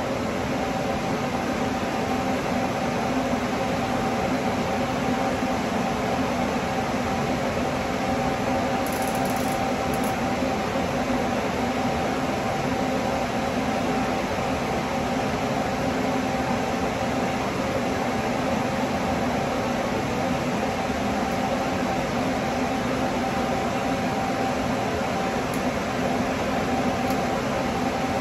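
Steady hum of a ventilation fan, with a faint steady tone running through it.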